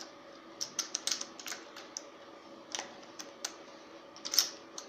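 Irregular small metal clicks and taps of a screw being picked out and handled among loose hardware, the sharpest tap about four and a half seconds in, over a faint steady hum.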